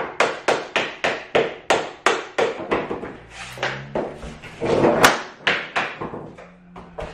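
A rapid run of sharp knocks, about three a second, with a louder flurry about five seconds in: a hammer striking a tapping block to drive a click-lock cork floor plank tight against its neighbour.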